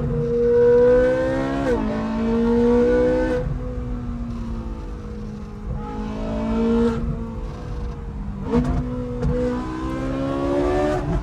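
Straight-piped Ferrari 458 Speciale V8 pulling hard, its pitch climbing through the revs and dropping sharply at gear changes, first about one and a half seconds in and again several times later.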